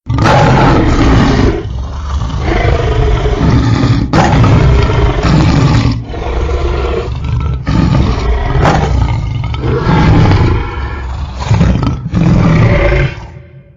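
Dinosaur roar sound effect: a chain of loud, deep, growling roars, one after another with brief breaks between them, starting abruptly and fading out at the end.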